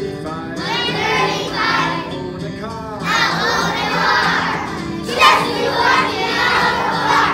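A class of young children singing a song together over music, with the voices jumping suddenly louder about five seconds in.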